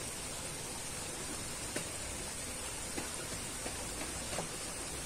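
Steady outdoor hiss with a few faint ticks scattered through it.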